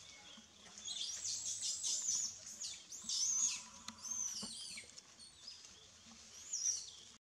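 A quick series of high, rising-and-falling chirping calls from about a second in to the middle, then one more chirp near the end.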